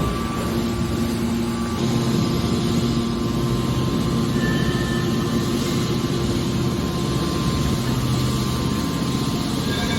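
Hydraulic copper wire baler running: a steady machine hum with a dense low rumble.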